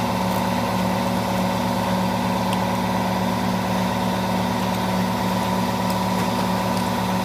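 A steady mechanical hum from a machine running in the workshop, even in level and pitch throughout. A few faint light metal clicks sound as the axle hub's inner nut is worked by hand.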